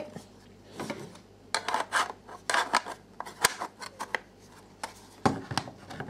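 Hands handling the plastic LCD monitor of a video doorbell kit on a wooden table: irregular clicks, taps and rubbing as it is turned over and set down.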